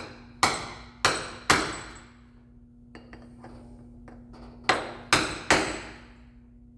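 Hammer striking a seal driver to drive a new oil seal into the bearing retainer snout of an A833 four-speed transmission. Six hard, ringing metal blows come in two groups of three, about half a second apart, with a pause of roughly three seconds between the groups.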